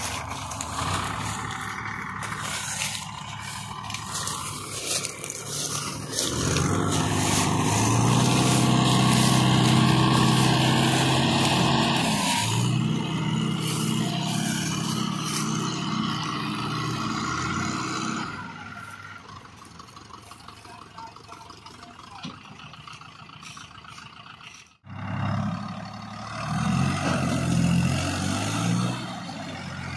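Diesel farm tractor engines running. The first few seconds hold scattered knocks and noise. From about six seconds in, a tractor engine runs loud and steady for several seconds, then drops back. After a sudden cut near the end, a tractor engine revs again.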